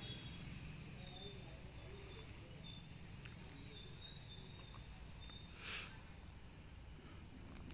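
Crickets chirring steadily in the background, a constant high-pitched trill. A few faint clicks, and a short scratchy rustle about three-quarters of the way through.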